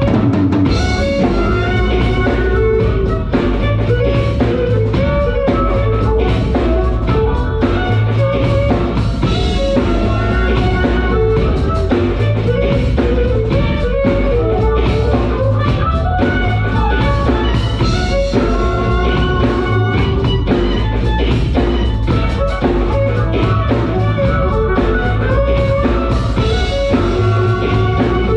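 Live band music: two violins playing a melody over a drum beat and backing track with a steady, heavy beat.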